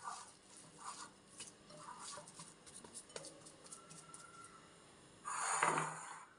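A hand kneading and squeezing a soft mashed-potato mixture in a glass bowl: soft squelches with small scattered clicks of fingers against the glass. About five seconds in comes a louder scraping rush lasting about a second.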